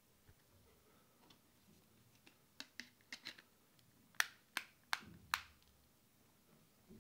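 Plastic back cover of a Doogee DG800 smartphone being pressed onto the phone, its clips snapping into place: a run of small clicks, then four sharp snaps a little under half a second apart.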